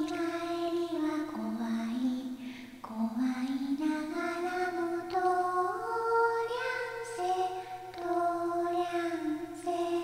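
Slow background music with long held notes and a melody line that glides upward in the middle.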